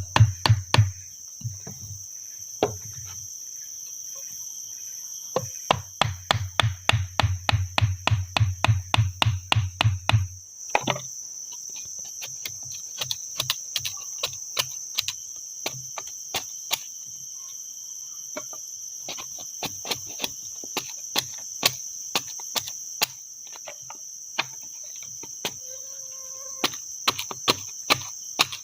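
Steady high drone of crickets, with two runs of rapid heavy blows, about four a second, the longer lasting about five seconds, typical of chopping or pounding wood; after that only scattered light taps and clicks.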